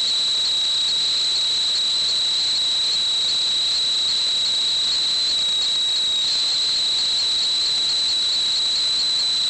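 A steady high-pitched whistling tone over a continuous hiss, unchanging throughout.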